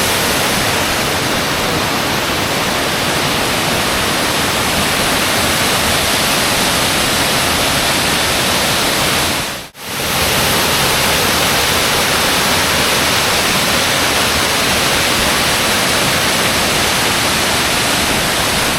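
Waterfall rushing, a loud steady roar of falling water heard close to the falls. The sound drops out briefly about halfway through, then resumes unchanged.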